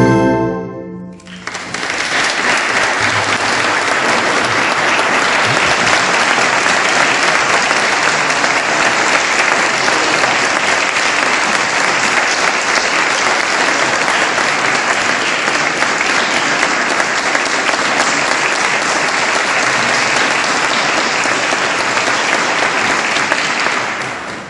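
A piece of music ends in the first second, then a concert audience applauds steadily for over twenty seconds. The applause stops abruptly near the end.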